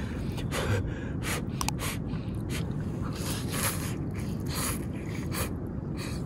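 A person slurping ramen noodles with a fork: a run of short, hissing slurps at an uneven pace.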